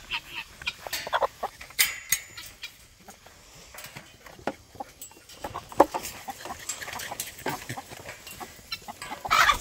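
Chickens clucking softly, among scattered short taps and rustles in the grass, with a louder burst of noise near the end.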